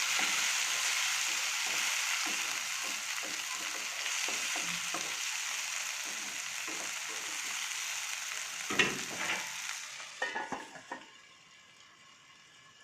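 Onion and tomato sizzling in hot oil in a pan while being stirred with a spatula in short scraping strokes. About nine seconds in there is a clatter of knocks, and then the sizzle drops to a faint hiss as the pan is covered with its lid to cook.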